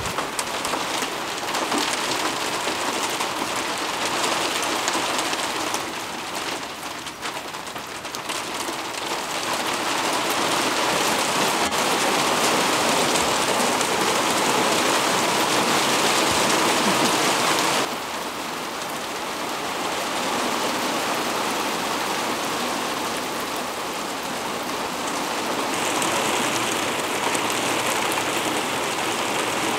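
Steady rain falling, an even hiss that eases for a moment around seven seconds in and comes back heavier. It drops suddenly about eighteen seconds in and swells again near the end.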